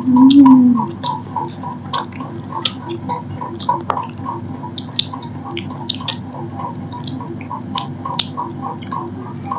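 Eating by hand from brass plates: short scattered clicks of fingers scraping rice off the metal and of chewing. A brief low hum rising and falling near the start is the loudest sound, and a steady pulsing background tone runs under it all.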